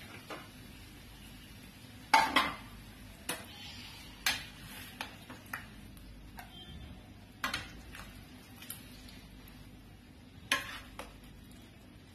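A metal spoon scooping macaroni in thick cheese sauce out of a steel pot into a bowl: scattered clinks and knocks of the spoon against pot and bowl, about half a dozen in all, the loudest about two seconds in and again near the end.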